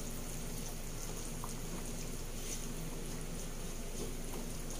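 Pork menudo simmering in a frying pan: a steady bubbling hiss of the sauce, with a few light taps of a spatula against the pan.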